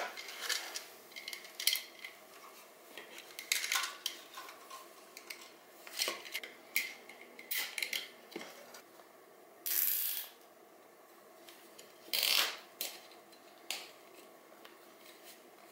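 Hard 3D-printed plastic parts of a catch can clicking and knocking as they are handled and fitted onto a minimoto. Two short rasping bursts come about ten and twelve seconds in.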